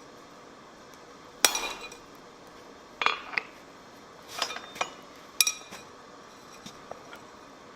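Steel striking steel: about six sharp, unevenly spaced clinks, each with a bright metallic ring, then a couple of faint taps near the end.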